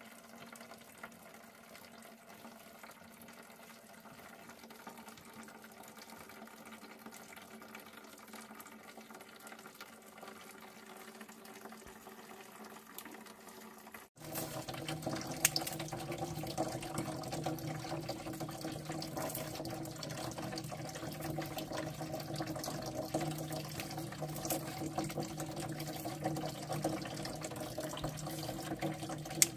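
Stream water running steadily. About halfway through it cuts abruptly to a louder, closer rush of water, with a few sharp clicks over it.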